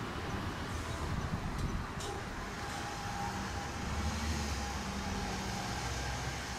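Electric train approaching slowly, with a steady low running hum that grows stronger about four seconds in.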